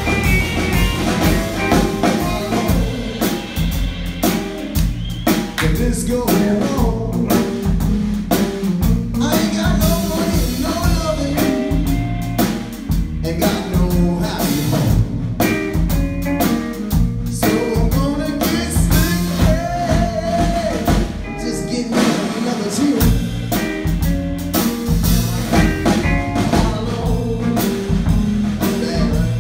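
A live blues band playing: electric guitar, electric bass and a drum kit keeping a steady beat, with a male singer's vocal.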